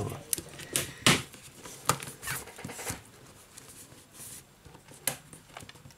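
Back-cover clips of a Lenovo Yoga Tablet 10 snapping into place as fingers press along the cover's edge: several sharp separate clicks, the loudest about a second in.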